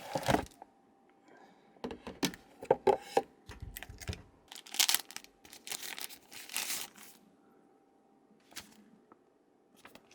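Packaging being handled during an unboxing: a run of light knocks and clicks, then crinkling, tearing rustles of packaging material a few seconds in, and two small clicks near the end.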